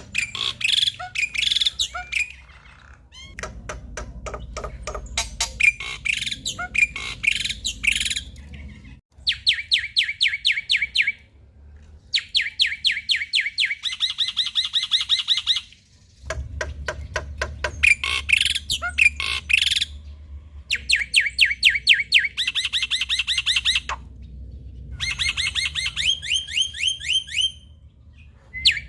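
Male black-winged starling (jalak putih) singing: phrases of a few seconds each made of fast, rapidly repeated sharp notes and chattering, separated by short pauses.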